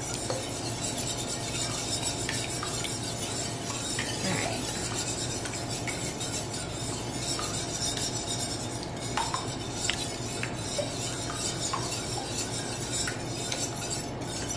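Wire whisk beating eggs and water in a stainless steel frying pan: a steady, rapid ticking and scraping of the whisk's wires against the metal pan.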